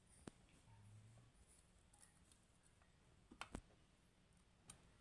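Faint small clicks of metal tweezers against an amplifier circuit board: one just after the start, two close together about three and a half seconds in, and one near the end.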